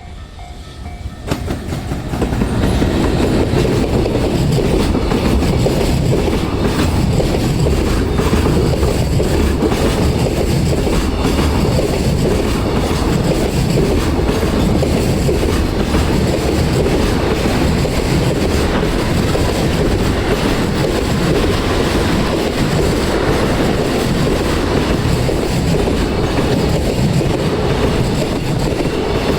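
EF210 electric locomotive hauling a freight train past at close range, the sound rising sharply about a second and a half in, then a long steady rumble of container wagons with rhythmic wheel clatter over the rail joints.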